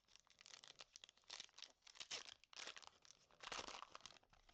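Foil wrapper of a Pokémon TCG booster pack being torn open and crinkled, a series of short rustling tears, the longest about three and a half seconds in.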